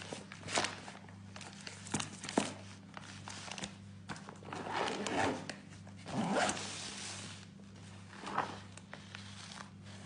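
Zipper of a fabric insulated lunch bag being drawn closed in two longer rasping pulls about halfway through, amid short clicks and rustles of the bag being handled.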